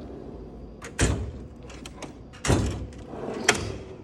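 Steel tool chest drawers being shut and opened: a clack about a second in, a longer sliding slam halfway through, and a sharp metallic click near the end.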